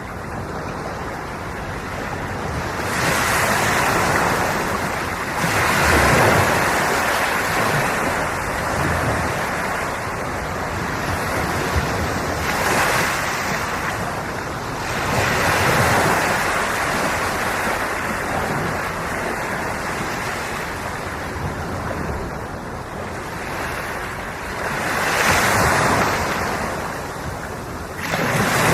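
Ocean waves breaking and washing on the shore, a steady surf that swells in a louder rush every few seconds.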